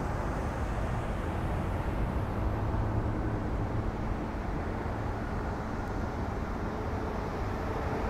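Steady low outdoor rumble, with a faint passing hum partway through and another near the end.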